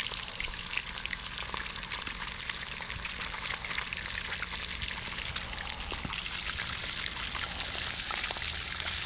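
A whole breaded white crappie frying in hot oil in a pan, with a steady sizzle full of small crackling pops.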